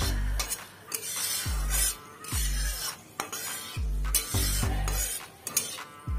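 A flat metal spatula stirs and scrapes whole spices sizzling in hot oil in a metal kadai. Background music with a deep, regular beat plays under it.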